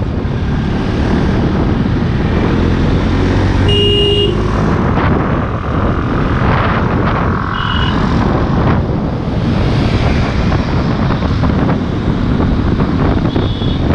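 Motorcycle engine running under way while riding, with wind buffeting the microphone. A short high beep sounds about four seconds in, and another near eight seconds.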